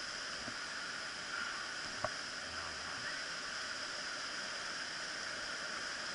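Whitewater of a small river rapid rushing steadily, with a single light knock about two seconds in.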